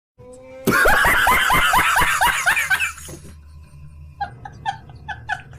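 Laughter sound effect: a loud run of rapid 'ha-ha-ha' laughs, about five a second, then a quieter run of short giggles near the end.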